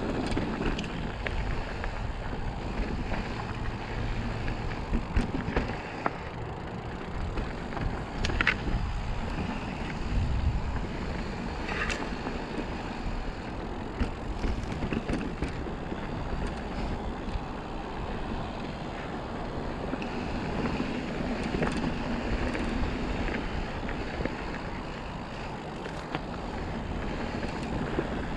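Mountain bike rolling down a dusty dirt singletrack: steady tyre and trail noise with rattles and clicks from the bike, and wind buffeting the microphone. Two brief high squeaks, about 8 and 12 seconds in.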